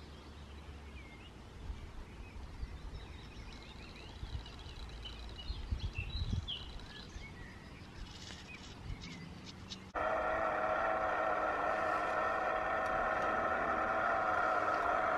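Quiet outdoor background with scattered bird chirps. About ten seconds in, it cuts suddenly to a small model garden-railway locomotive running, its electric drive making a loud, steady whining hum with several tones.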